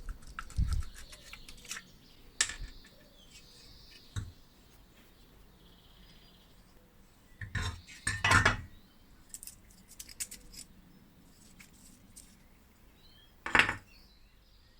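Small metal parts clinking and knocking as they are handled, with scattered light clicks and a few louder knocks, the loudest about eight seconds in and near the end.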